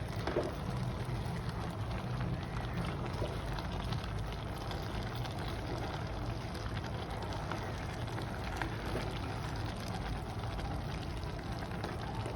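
Anchovy and grated-coconut mixture sizzling and simmering steadily in a pan over the stove.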